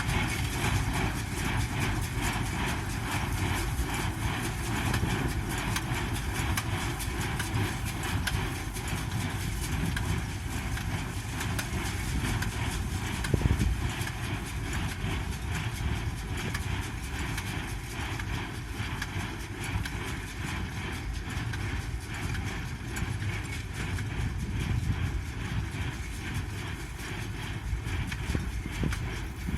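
Pick-up hay baler running, a steady rhythmic knocking over the low hum of the tractor engine driving it. One louder knock comes about 13 seconds in.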